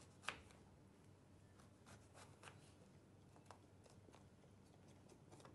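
Near silence with a few faint, scattered clicks and scrapes of a small knife on a plastic cutting board as the green cap is cut off an aubergine; one click about a quarter second in is a little louder.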